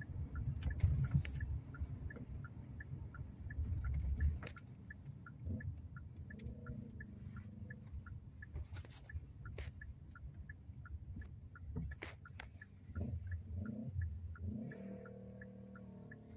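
Inside a moving car: low road rumble, heavier in the first few seconds, under the steady ticking of the turn-signal indicator, about two or three clicks a second. A low humming tone comes in near the end.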